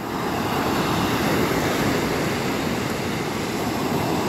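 Ocean surf breaking and washing up the beach, a steady rushing noise with no clear separate strokes.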